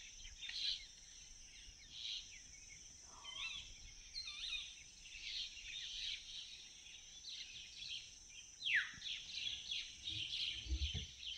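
Woodland birds chirping in many short calls over a steady high hiss, with one falling whistle about nine seconds in.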